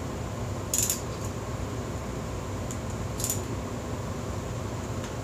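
Click-type torque wrench tightening a motorcycle cylinder-head bolt: two short, sharp metallic clicks, about a second in and again about three seconds in, over a steady low hum. The wrench's click signals the bolt has reached its set torque.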